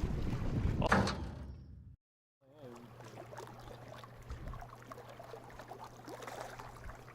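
Wind buffeting the microphone, with a sharp knock about a second in. It cuts off suddenly, and after a short silence a quieter stretch follows with a steady low hum and light scattered clicks.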